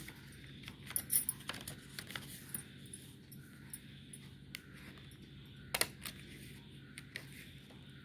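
Scissors cutting paper: a scattered run of short snips and metal blade clicks, loudest about a second in and again near six seconds.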